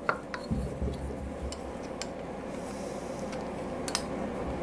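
Scattered light metallic clicks and taps of a hand tool working the intake manifold bolts of a 1997 Harley-Davidson Evolution V-twin as they are backed off, over a low steady hum.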